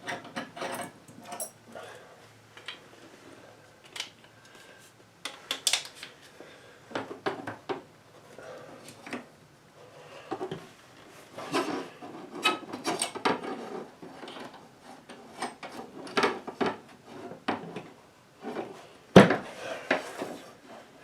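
Hands fitting compressed-air tubing and outlet fittings together: irregular clicks, knocks and rubbing, with one louder knock near the end.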